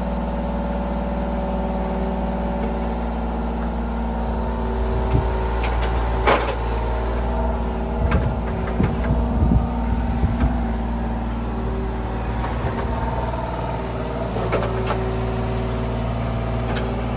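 An engine running steadily, with a scatter of sharp knocks and clanks from about five to eleven seconds in.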